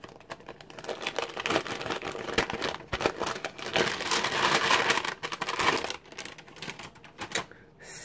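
Thin paper envelope being opened and handled close up: dense crinkling and rustling with many small crackles, dying down in the last half second.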